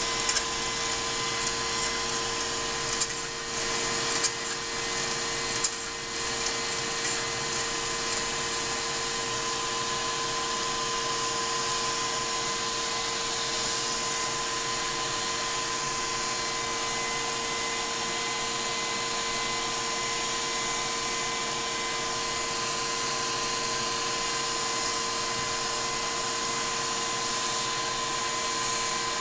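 Lego model steam engine running steadily, a continuous whirring whine from its drive and moving plastic parts. A few light clicks come in the first six seconds.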